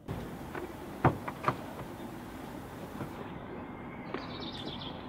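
A car's rear door unlatched with a few sharp clicks about a second in, then pushed open, over a steady outdoor background hiss.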